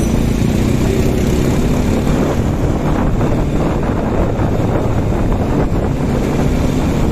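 Wind buffeting the microphone over a running motorcycle engine while riding, a steady, loud rumble with a faint engine hum underneath.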